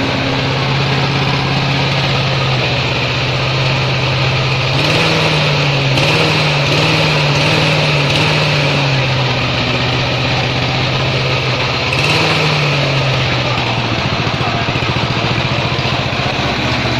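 Brand-new 196cc four-stroke lawn mower engine running steadily. Its speed rises and wavers a few times, about five seconds in and again briefly near twelve seconds.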